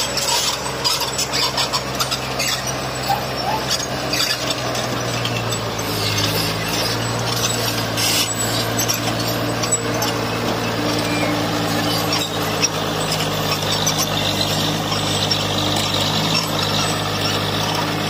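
Heavy diesel construction machinery running steadily under load: a constant low engine drone with scattered knocks and noisy scraping on top.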